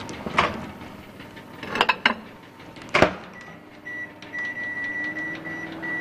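Built-in microwave oven being shut and started: a few sharp knocks and clunks, then beeps and a steady hum as it begins running.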